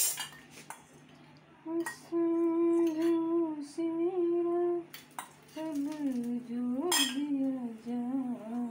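A woman humming a tune in two long, held phrases, with a metal ladle clinking a few times against the griddle as ghee is poured onto the paratha.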